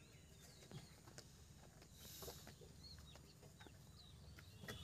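Near silence, with scattered faint high chirps from birds and a few faint clicks.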